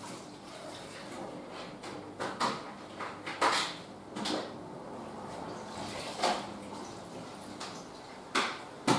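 Scattered knocks and scrapes from cleaning around a door and its frame, about six over several seconds, over a low steady hiss.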